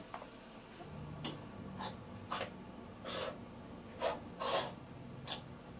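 A string of short, soft scuffs and rustles, about seven in all at irregular intervals. They come from a person kneeling on a small tiled bathroom floor and handling leak-detection listening gear.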